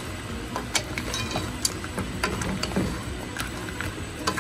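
Dungeness crab shell pieces clicking and knocking against a frying pan and each other as they are stirred with a wooden spatula: irregular sharp clicks, a few a second.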